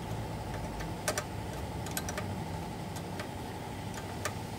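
Several sharp metallic ticks from an open-end wrench working the alternator's adjusting bolt, scattered irregularly over a low steady hum. The bolt is being turned to tension a new fan belt.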